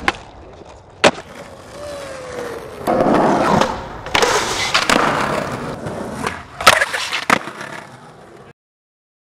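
Skateboard wheels rolling on concrete, with sharp clacks of the board hitting the ground about a second in and twice in quick succession near the end.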